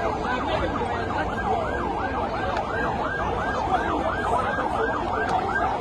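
Emergency-vehicle sirens wailing, several fast rising-and-falling yelps overlapping one another without a break.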